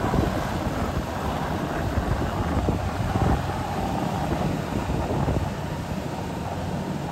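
Engine of a tracked rice-sack carrier running steadily as it crawls through a muddy rice field, a little quieter over the last couple of seconds.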